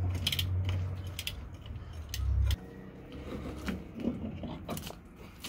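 Metal clinking and rattling as the steel parts and tools of a monster truck's planetary axle hub are handled and pulled apart, over a low steady hum that cuts off suddenly about two and a half seconds in.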